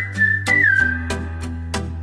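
Background music: a whistled melody that slides between held notes, over sustained bass notes and a steady beat of about four clicks a second.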